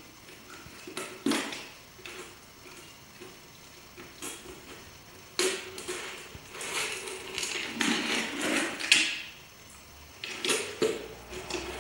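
Malamute puppy licking and chewing at an emptied plastic peanut butter jar, the jar knocking and scraping against concrete. The noises come in fits and starts: a few sharp knocks, with the busiest stretch of scraping and chewing in the middle.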